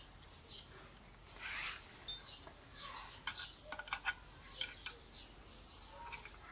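A steel spanner scraping and clinking against a bolt and the metal head of a mortising machine as it is fitted and turned. A rub comes about a second and a half in, then a quick run of sharp metallic clicks in the middle. Faint birdsong runs behind.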